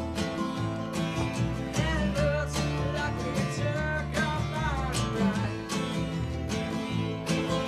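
Guitar-led music with a steady drum beat and a gliding lead melody line.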